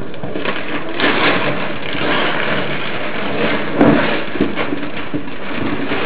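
Christmas wrapping paper being torn and crumpled off a gift box: a dense, continuous rustling and tearing, with one louder knock about four seconds in.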